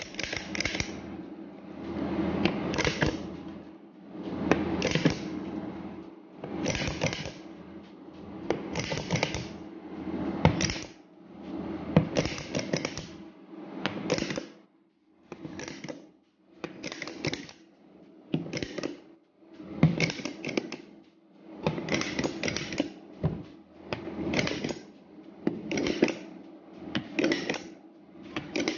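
Cookie press clicking out dough and being set down and lifted on an aluminium baking tray, cookie after cookie: short bursts of clicks and metal scraping about every one to two seconds, coming faster in the second half.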